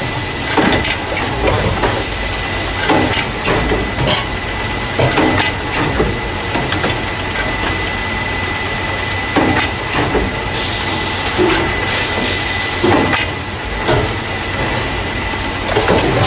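Carton caser, a packing machine that loads juice and milk paper cartons into plastic crates, running: a steady machine noise with a steady high tone and frequent irregular clacks and knocks. A burst of hiss lasts about two seconds, starting about ten seconds in.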